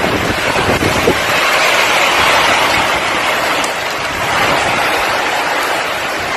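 Hurricane-force wind rushing in a loud, steady noise that does not let up.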